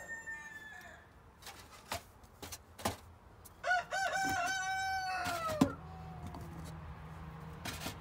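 A rooster crows once, about three and a half seconds in: a few short rising notes, then a long held note that falls away at the end, lasting about two seconds. A fainter crow fades out near the start, and a few light knocks come before the main crow.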